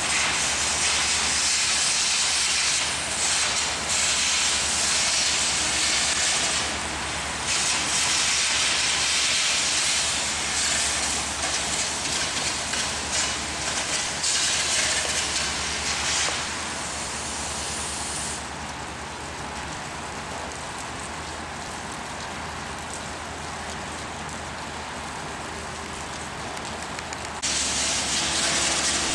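Electric arc working the viaduct's structural steel, throwing sparks: a loud, steady high hiss with brief breaks about three and seven seconds in. It drops away about eighteen seconds in and starts again near the end, over a steady low hum.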